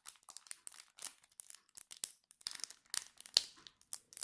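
A Yu-Gi-Oh booster pack's foil wrapper being crinkled and torn open by hand in irregular short crackles, with a few sharper crackles in the second half as the pack takes some effort to open.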